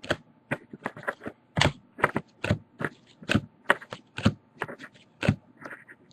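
Trading cards being flipped through by hand, giving irregular sharp clicks and slides as card edges snap past one another, a few a second.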